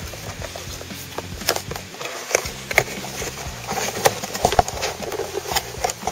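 Hands handling a cardboard box: irregular scrapes, taps and rustles as the box is worked open and its bottom insert is pulled out.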